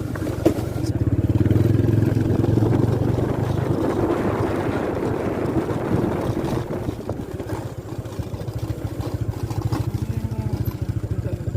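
Small motorcycle engine running on the move, with a rushing noise midway. About two-thirds of the way through it eases into a slower, even putter.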